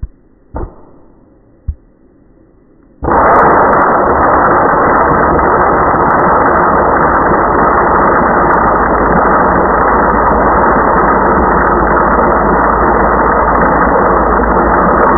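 Electric blade coffee grinder starting up about three seconds in and running steadily, its spinning blade chopping and tossing whole coffee beans into powder. Before it starts there are two light knocks.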